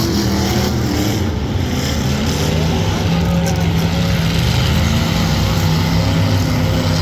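Demolition derby cars' engines running and revving together, a loud steady din of engine noise.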